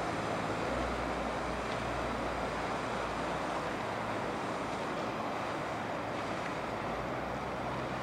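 Steady rush and wash of river water, with a low boat-engine hum underneath.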